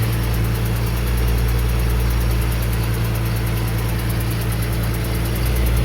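2008 Ford Mustang 4.0 V6 engine idling steadily, with a fast, even ticking over it. The tick appeared after a stripped spark plug hole was repaired with a thread insert; the owner wonders whether it is an exhaust leak or a bad PCV valve.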